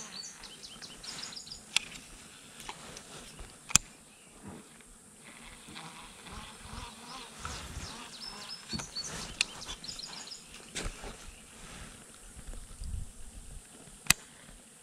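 Insects chirping in short, high repeated trills over a low outdoor hiss, with three sharp clicks, about two, four and fourteen seconds in.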